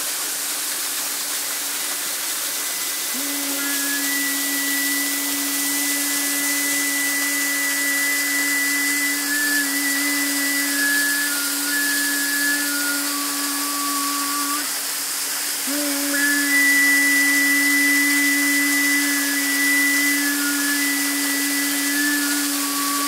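Mountain torrent rushing, a steady hiss of water, under slow music of long held notes: a low drone with higher notes changing step by step above it, the drone breaking off briefly about two-thirds of the way through.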